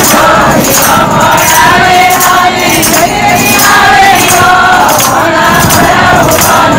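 A group of women singing a Marwari Krishna bhajan together, keeping time with steady rhythmic hand-clapping.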